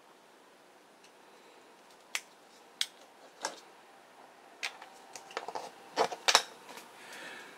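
Hard plastic parts of a vintage TOMY DX Gransaurer transforming robot toy clicking and snapping as it is handled and fitted together: scattered sharp clicks, closer together and loudest about six seconds in.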